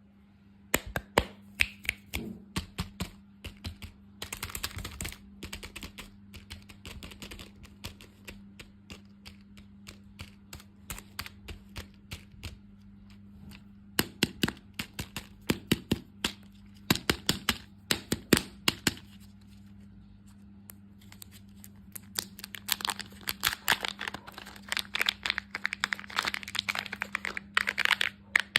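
Close-miked crisp crackling and sharp clicks from candy and dessert treats, in irregular runs with a denser, continuous crackling stretch near the end, over a faint steady hum.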